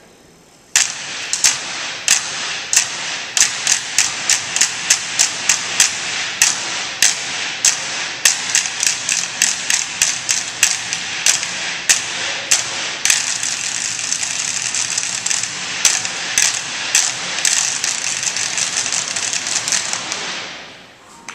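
Group percussion performance on improvised objects: many sharp strikes, a couple to a few a second, over a steady rattling clatter. It starts suddenly, the strikes thin out about two-thirds of the way through, and it fades out near the end.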